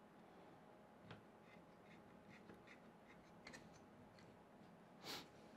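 Near silence, with faint scattered clicks and taps of hands handling the 3D printer's metal Z-axis lead screw and its fittings, and a short hiss just after five seconds.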